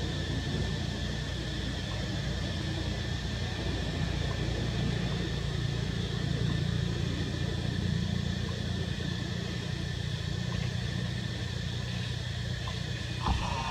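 Steady low background rumble with a constant hiss, and a short, sharper sound near the end.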